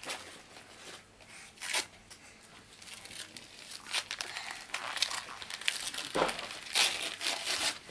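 Christmas wrapping paper being torn and crinkled by hand as a present is unwrapped, a string of short rips and rustles that grows busier about halfway through.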